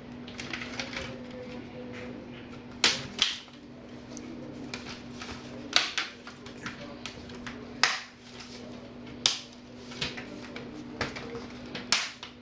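Plastic snap clips of a Dell Inspiron 15's palmrest cracking loose one after another as the top case is pried off the chassis: about eight sharp clicks at irregular intervals a second or so apart.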